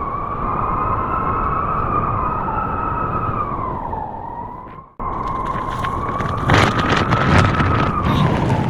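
Wolves howling, one long wavering howl with a second voice overlapping at times, over a low rush of wind. It breaks off abruptly about five seconds in and resumes, with crackling clicks near the end.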